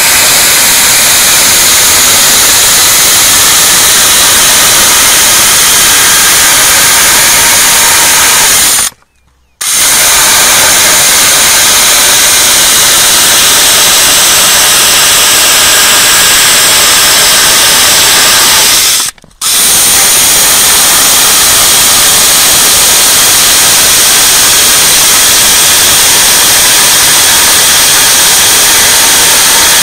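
Pellenc M12 battery-powered electric chainsaw running steadily as its chain cuts through a square wooden beam. The sound breaks off twice, briefly, about nine and nineteen seconds in.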